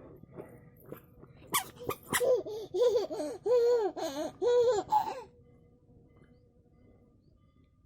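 A young child laughing in a run of high, pitched bursts, about two a second, that stop a little past halfway. A couple of sharp clicks come just before the laughter.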